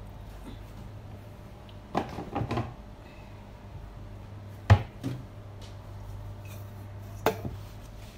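Kitchen clatter: a few sharp knocks and clinks of things being handled and set down, the loudest a little under five seconds in, over a steady low hum.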